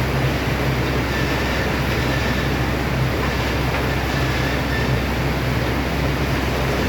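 Double hop baling press and its reversing conveyor belt running: a steady mechanical din with a low hum underneath and a faint high whine.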